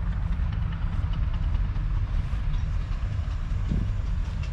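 AEC Matador's 7.7-litre six-cylinder diesel engine idling with a steady low rumble and rapid knock.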